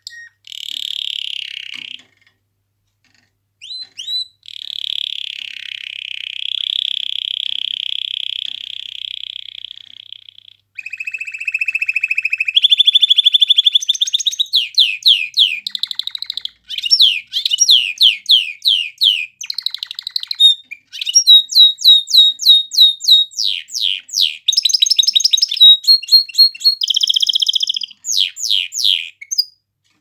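Domestic canary singing a long song: buzzy rolling trills, a brief pause about two seconds in, a sustained roll, then from about halfway a loud, fast series of repeated downward-sweeping whistled notes.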